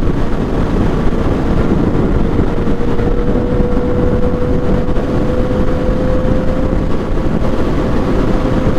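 Yamaha FZ-09's inline-three engine running steadily at road speed under heavy wind rush on the microphone, its note creeping slowly higher.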